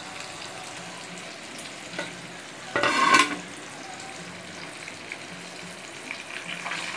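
Chicken 65 pieces deep-frying in sesame oil in a small pan: a steady bubbling sizzle, with one brief louder burst about three seconds in.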